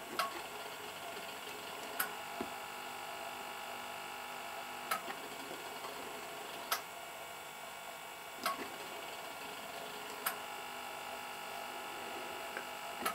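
Servo drive of a Gauge 0 model railway turnout slowly throwing the points: a faint steady hum with a sharp click about every two seconds.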